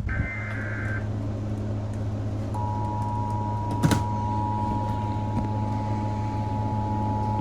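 Emergency Alert System signalling: a brief rasping two-tone digital data burst (a SAME header/end-of-message burst) right at the start, then, about two and a half seconds in, the steady two-tone EAS attention signal begins and holds. Under it runs a low electrical hum, with a single sharp click near four seconds in.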